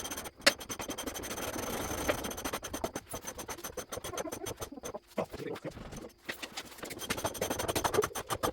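Irregular scraping, knocking and clatter of hand work on metal truck parts.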